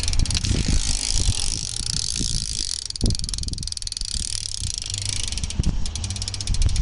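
Odyssey Vandero rear BMX hub freewheeling with a rapid, loud ticking of its pawls. The clicks thin out and turn distinct from about five and a half seconds in as the wheel slows. Low, irregular thumps sound underneath.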